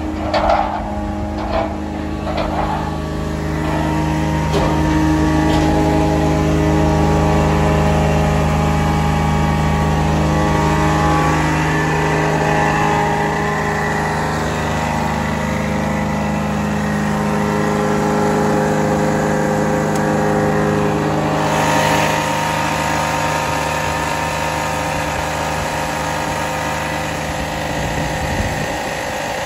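Kubota diesel engine of a Ditch Witch FX30 vacuum excavator running steadily, growing louder about four seconds in. There are a few knocks in the first couple of seconds.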